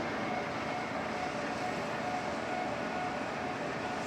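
Lathe running steadily with an even machine hum from its gearing, spindle in reverse to run the carriage back after a threading pass.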